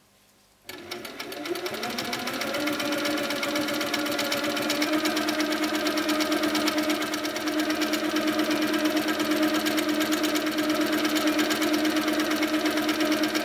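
Handi Quilter Sweet Sixteen sit-down longarm quilting machine stitching free-motion feathers. It starts about a second in, speeds up over the next two seconds, then runs at a steady fast stitch with rapid, even needle ticking.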